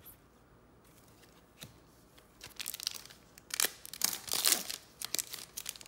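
Trading-card pack wrapper crinkling and tearing as it is opened, in a run of crackles starting about halfway in and loudest near the end.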